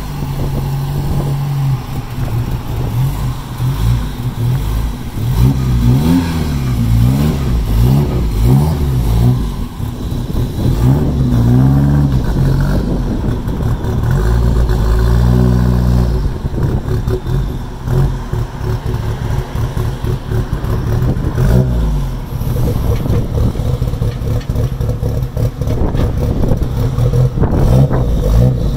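Ford Mustang SVO's 2.3-litre turbocharged four-cylinder engine running, freshly started on a new engine harness. It idles and is revved in several short blips that rise and fall, with one rev held for a couple of seconds about halfway through.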